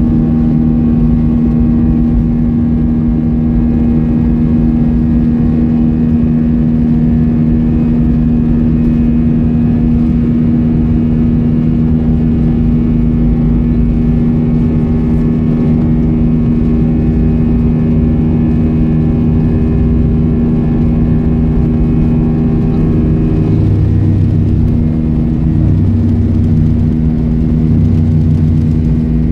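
Airbus A320-232's IAE V2500 turbofan heard from the cabin, running steadily with a loud, even drone and hum as the airliner moves along the ground for take-off. A low rumble comes and goes near the end.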